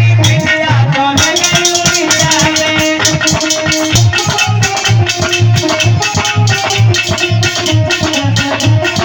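Instrumental passage of a Hindi Krishna bhajan: a steady low drum beat at about two strokes a second, a continuous shaker-like rattle, and held melody notes.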